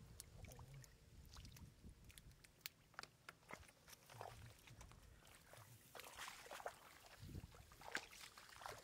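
Faint wet splashing and slapping of catfish wriggling and flopping in shallow muddy water, with scattered short clicks and drips.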